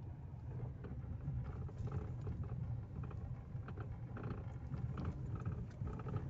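Car driving over an unpaved dirt and gravel track, heard from inside the cabin: a steady low road rumble with irregular clicks and knocks from stones and ruts under the tyres.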